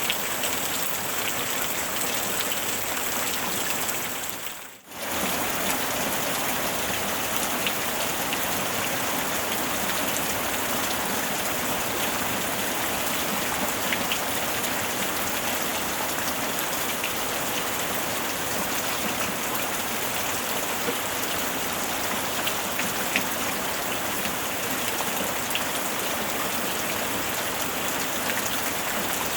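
Steady rain falling on a surface, a dense even hiss with scattered drop ticks. About five seconds in it briefly fades almost out and comes straight back.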